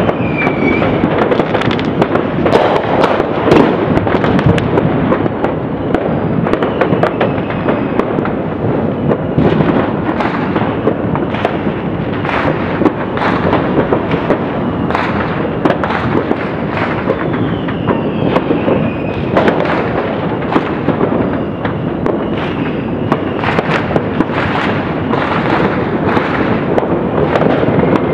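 New Year fireworks going off from many launch points across a city at once: a continuous barrage of overlapping bangs and pops with no pause.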